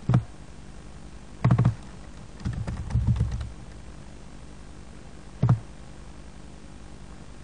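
Computer keyboard and mouse use: a few dull, thumpy clicks, a quick run of several taps about two and a half seconds in, and one more click near the end, over a steady low hiss.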